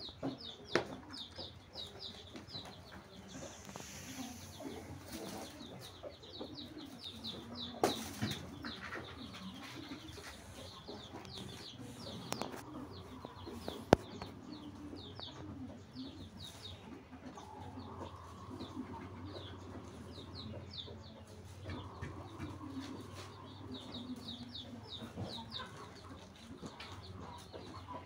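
Farmyard birds: chickens clucking, with high chirping in quick runs over them. A few sharp clicks or knocks, the loudest about halfway through.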